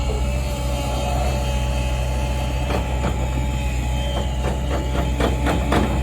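A large engine running steadily at a constant speed, with a series of sharp knocks or clanks in the second half.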